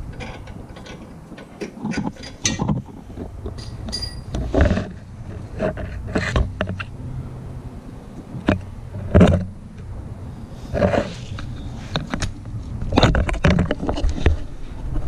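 Irregular metal knocks and clanks, one every second or two with a few louder ones, from working a seized rear lateral link bolt out of its bushing and knuckle.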